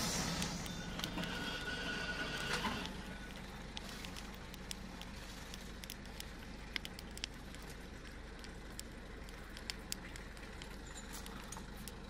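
An engine running for the first three seconds or so, then cutting out. It leaves a faint steady outdoor hush with scattered sharp clicks.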